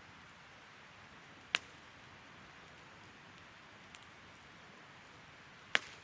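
Wood campfire burning with a steady hiss and crackle, broken by two sharp pops, one about a second and a half in and one near the end, with a faint snap between.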